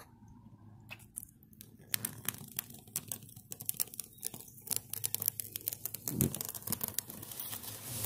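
Reflective tape being peeled by hand off a school bus's side panel, the adhesive letting go in a dense run of small crackling snaps that grows busier toward the end.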